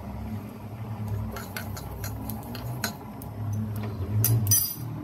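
Niger seeds crackling and popping as they dry-roast in a hot steel kadai, scattered sharp ticks over a steady low hum, with a louder clatter near the end. The crackle is the sign the seeds are roasted enough.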